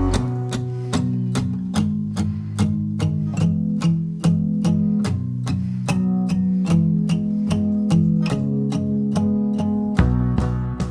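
Background music: guitar notes picked in a steady rhythm, about two or three a second, over a low sustained line. It fades out at the very end.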